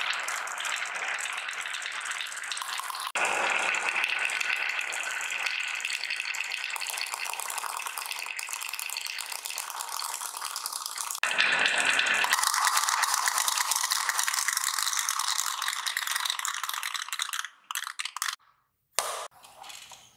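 Many small balls rolling down the wavy grooves of a wooden marble slope, a dense continuous clatter of balls knocking against each other and the wood. Near the end it thins out to a few separate clicks.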